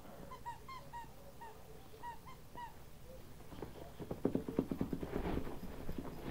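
Dog whimpering: short, high whines in quick groups of two or three over the first three seconds. Then a rapid run of clicks and rustling close to the microphone, loudest in the second half.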